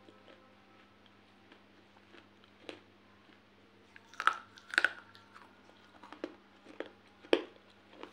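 Pieces of baked clay pot being bitten and crunched between the teeth. Small scattered crunches give way to a few loud, sharp bites a little past halfway, with one more loud crunch near the end.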